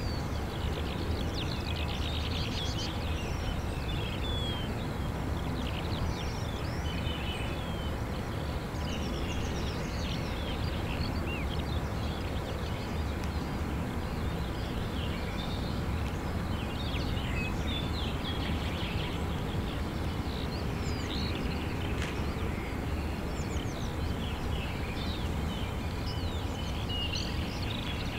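Songbirds chirping continuously, many short rising and falling calls, over a steady low rumble of outdoor background noise that neither grows nor fades.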